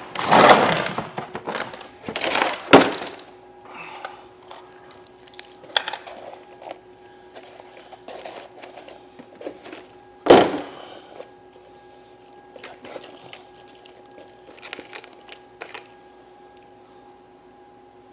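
Handling noises of tools and parts being rummaged through: loud rustling and clattering at first, a sharp knock about three seconds in and a louder clack about ten seconds in, then scattered small clicks over a faint steady tone.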